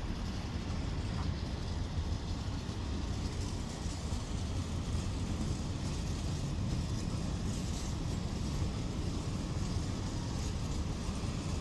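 Freight train of Eaos open coal wagons rolling past, a steady low rumble of wheels on the rails.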